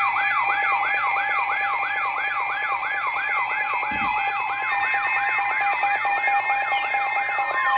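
Electronic siren-style emergency alert tone: a falling sweep repeating about three times a second over steady alarm tones. A steady higher tone joins near the end.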